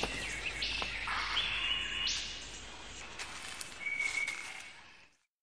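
Superb lyrebird singing a series of varied calls, a mix of harsh rasping notes and short whistles, fading out about five seconds in.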